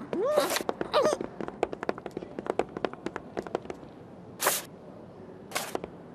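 Cartoon sound effects: two short wordless vocal sounds from the sheep characters, each rising and falling in pitch, in the first second. Then a quick run of light taps for about three seconds, and two brief rushing whooshes near the end.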